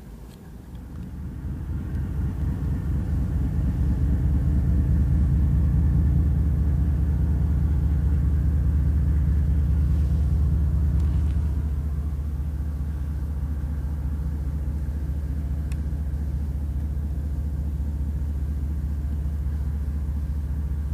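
Union Pacific diesel-electric freight locomotive rumbling as it pulls a freight train slowly past. The rumble builds over the first few seconds, holds steady, and eases slightly about twelve seconds in.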